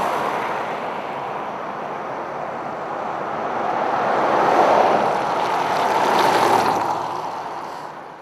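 Outdoor rushing noise, like wind or distant road traffic, that swells to its loudest a little past the middle and then fades away near the end.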